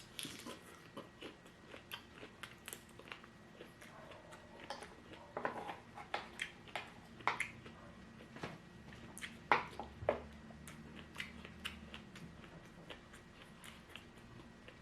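Close-miked chewing and biting of food, heard as irregular sharp crunches and wet mouth clicks, with a few louder bites in the middle.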